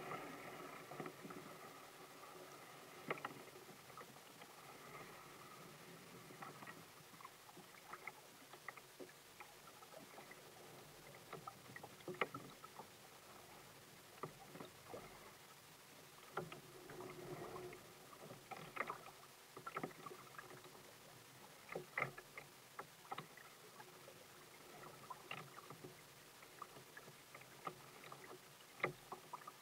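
Faint water lapping and splashing against a kayak's hull: a quiet steady wash broken by many irregular small splashes.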